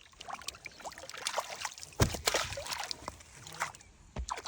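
Water splashing and sloshing in irregular bursts, with a sharp knock about two seconds in followed by a loud splash.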